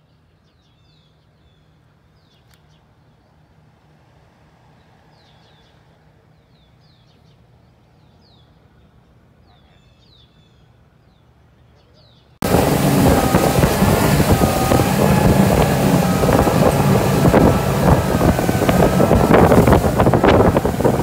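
Faint bird chirps, short repeated downward notes, over a low steady hum; then about twelve seconds in a sudden cut to a boat underway on open water: an outboard motor running with a wavering whine, under heavy wind noise on the microphone and splashing water.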